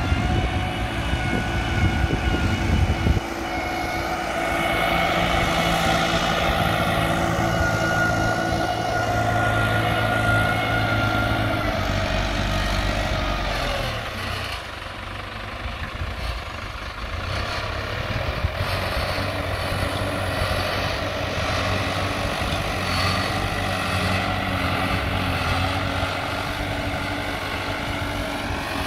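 New Holland TT4.75 tractor's diesel engine running steadily under load while pulling a mounted multi-furrow plough through the soil. It grows fainter about halfway through as the tractor works away, then louder again as it comes back.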